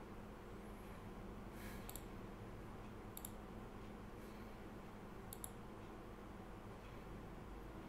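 Three faint double clicks of a computer mouse, spread a second or two apart, over a steady low room hum.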